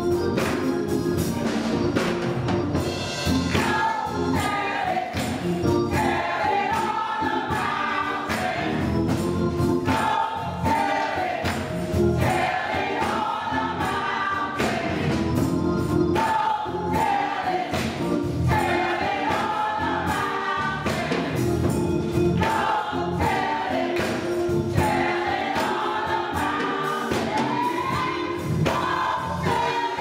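Gospel choir singing with keyboard accompaniment from a Yamaha Motif XF, and percussion hits keeping the beat.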